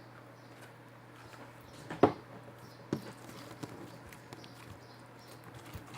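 Slime and its pot being handled: one sharp click about two seconds in, a second softer one shortly after and a few faint taps, over a steady low hum.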